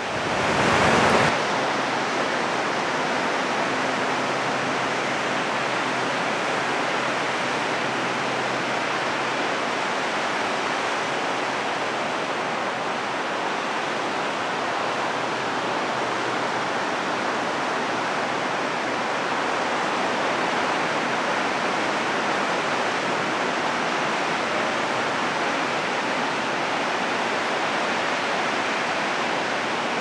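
Ocean surf breaking, heard as a continuous, even wash of noise with no single wave standing out; slightly louder for the first second.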